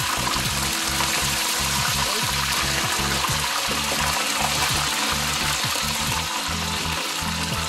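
Two whole red snapper frying in hot oil in a pan, a steady sizzle and crackle, with background music underneath.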